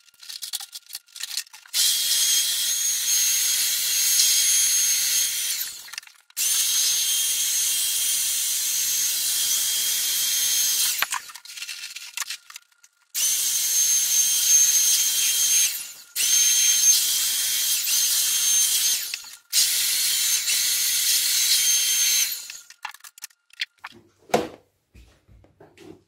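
Corded electric air blower running in five bursts of a few seconds each, a steady rush of air with a high motor whine, switched off briefly between bursts. It is blowing water out of a freshly hosed air-conditioner indoor unit's coil.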